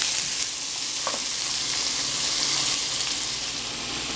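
Fresh corn kernels and onion sizzling in hot oil in a frying pan, frying to soften. A spoon scrapes the pan briefly twice, about a second apart near the start, as they are stirred.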